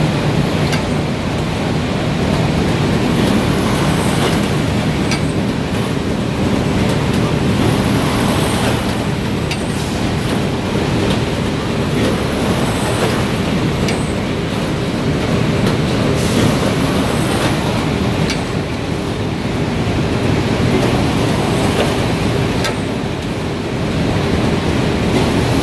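Bobst Rapidset FFG 1232 NT RS folder-gluer line running: a loud, steady mechanical noise with faint clicks every second or so.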